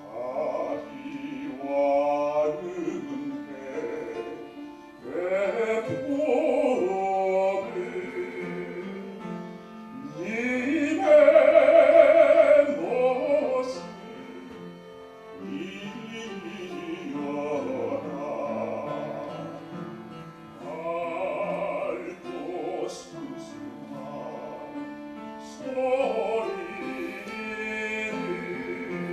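A man singing a slow song in Korean solo into a microphone, with vibrato, over instrumental accompaniment. The loudest moment is a long held note about eleven seconds in.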